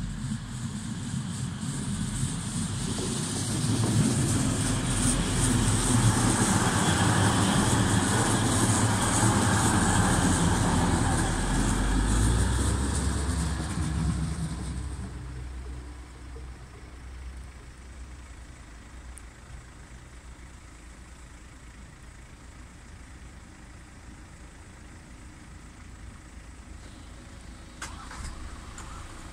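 Red diesel multiple unit passing over a level crossing: engine rumble and wheel noise build to a peak, then fade away about halfway through. A lower steady hum remains, and a few short clicks come near the end as the crossing barriers rise.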